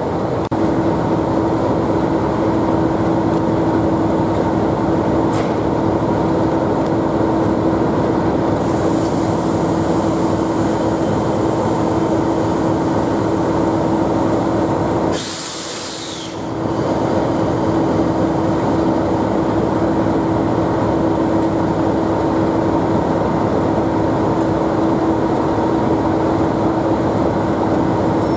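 Class 37 diesel locomotive's English Electric V12 engine idling with a steady hum and a held tone. A high hiss of air runs for several seconds midway, followed by a brief sharp burst of hiss.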